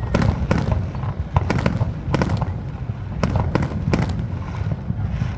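Aerial firework shells bursting in quick succession: a dozen or more sharp bangs, irregularly spaced, over a continuous low rumble of booms.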